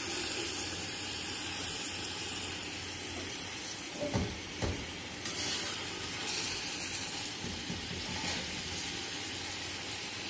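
A plastic spatula stirring a hot yogurt-and-onion broth in a large aluminium pot on a lit gas stove, over a steady hiss, with two soft knocks about four seconds in.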